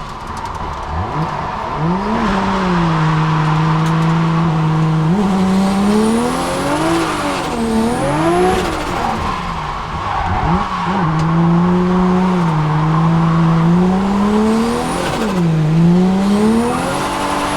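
Turbocharged RB25DET straight-six of a drifting Nissan 200SX S14, heard from inside the cabin. It is held at steady high revs through long slides, with tyre squeal. Between slides the revs drop and climb again several times.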